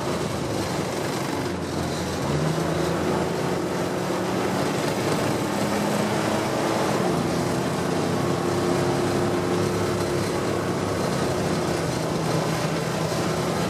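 An engine running steadily under a continuous rush of noise, its pitch stepping up slightly a couple of seconds in.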